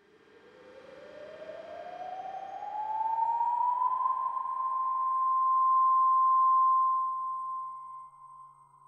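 A siren-like tone rising steadily in pitch over about four seconds, then holding one steady pitch and swelling before fading near the end.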